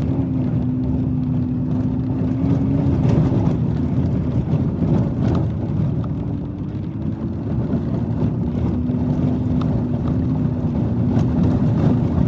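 Vehicle driving, heard from inside the cabin: steady engine and road noise with a low, even hum.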